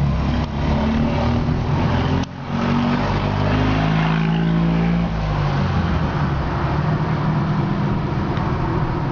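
Car engine and road noise heard from inside the cabin while driving. There is a short break about two seconds in, then the engine note rises as the car accelerates and settles to a steady cruise about five seconds in.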